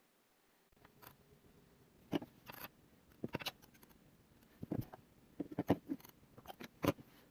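Scattered light clicks and knocks of PVC drain pipe and fittings being handled while they are primed for gluing.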